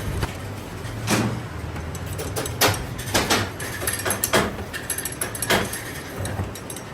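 Irregular knocks and clanks of metal being handled and struck in a metalworking shop, about six of them, over a steady low hum.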